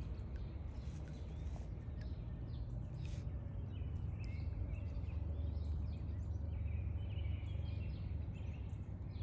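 Small birds chirping and calling intermittently over a steady low rumble.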